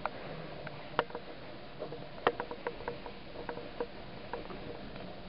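Scattered soft clicks and knocks at an uneven pace, some with a short creak to them, from someone moving about with the handheld camera; the sharpest knocks come about a second in and a little after two seconds.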